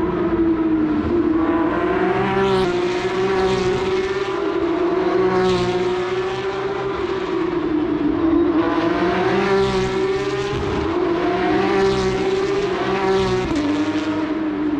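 Race car engines at full throttle on a street circuit: several rising engine notes broken by quick upshifts as cars accelerate past, over a steady engine drone that drops in pitch near the end.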